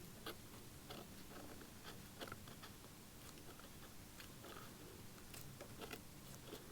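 Faint, irregular small clicks and crackles of close hand work: old leather, turned brittle with age, being picked and peeled away from the mouth of an antique automaton's face.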